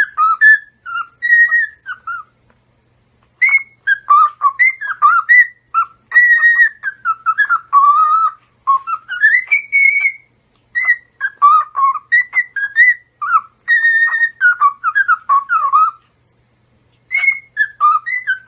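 Parrot whistling a long run of quick, tune-like phrases that glide up and down, broken by two short pauses.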